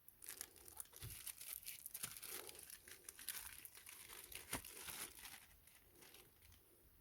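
Packaging being crinkled and torn open by hand, a dense crackle for about five seconds that then dies down.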